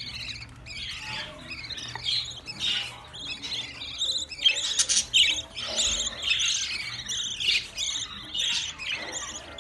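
A flock of budgerigars chattering, many short high chirps and squawks overlapping without a break.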